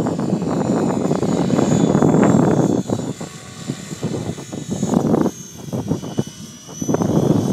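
Align T-Rex 550 RC helicopter flying at a distance: a thin, high whine from its motor and rotor head that drifts up and down in pitch. Over it is a loud, gusty rumble that drops away about three seconds in and comes back near the end.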